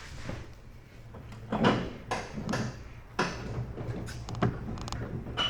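Metal clunks and scrapes from working the riding mower's deck and its hanger pins loose, a handful of separate knocks in the second half.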